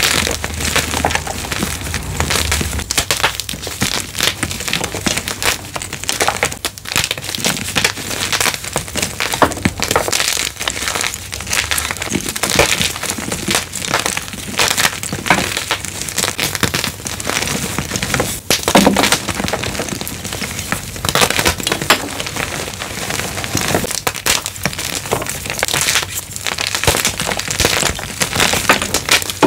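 Blocks of gym chalk being crushed: a dense, unbroken run of crunches and crackles, with one sharper crack about two-thirds of the way through.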